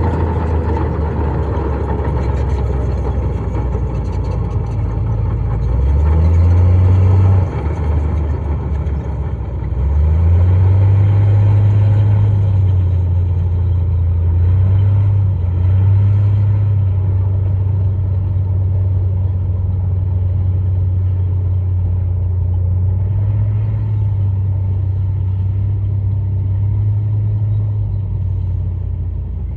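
Heavy diesel engine of an earthmoving machine running loud. It revs up about six seconds in, drops back, then revs up again about ten seconds in and holds the higher revs.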